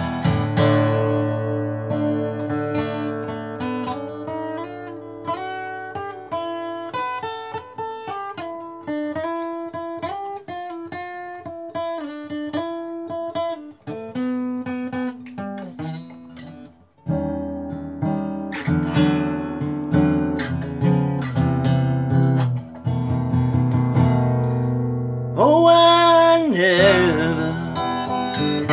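Acoustic guitar played alone as an instrumental break: single picked notes in a melody for the first half, then, after a brief pause about halfway, strummed chords for the rest.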